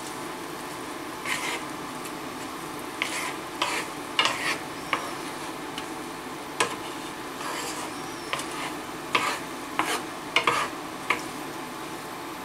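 Peas, chopped onion and diced pancetta sizzling in olive oil in a pan, with a utensil stirring and scraping through them in short irregular strokes about once a second.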